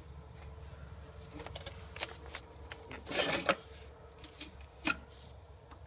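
Scattered clicks, knocks and rustles of hands handling parts of a forklift, the loudest a short clattering cluster about three seconds in, over a faint steady low hum.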